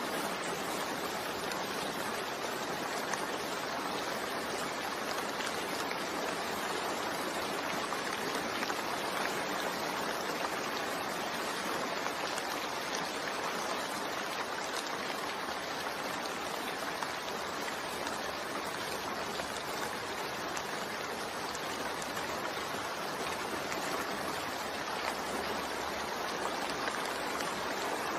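Steady heavy rain, an even unbroken hiss with no single drops or thunder standing out.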